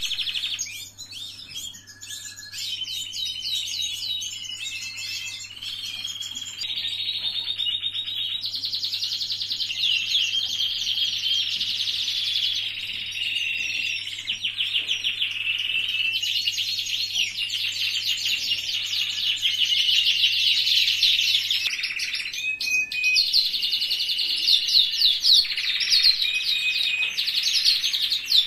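Domestic canaries singing: a long, continuous song of rapid trills and warbled runs, one rolling phrase giving way to the next. A steady low hum underlies it and stops about three quarters of the way through.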